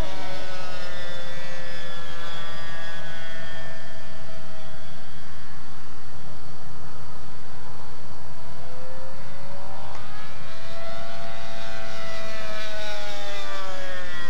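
A radio-controlled Revolver aerobatic plane's Super Tigre 90 two-stroke glow engine, a loud high buzz in flight. Its pitch sinks over the first few seconds, climbs again about ten seconds in, and falls away near the end as the plane flies its manoeuvres.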